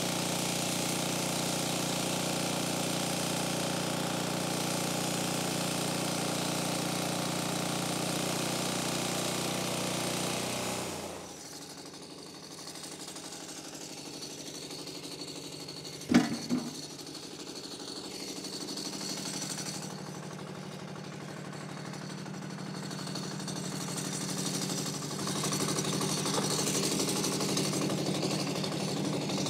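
Portable bandsaw sawmill's engine running steadily as the blade cuts through a large log, then dropping to a lower running sound about eleven seconds in. About halfway there is one sharp clatter as a sawn slab is pulled off the log, and the engine picks up again near the end.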